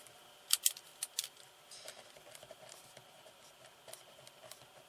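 A few sharp clicks of a felt-tip marker pen being picked up and handled about half a second to a second in, then the faint scratching of the marker tip writing on paper.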